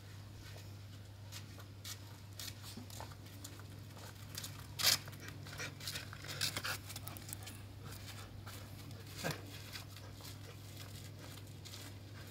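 Footsteps of a person and a puppy on stone paving: irregular scuffs and taps, loudest about five seconds in as they pass close, over a steady low hum.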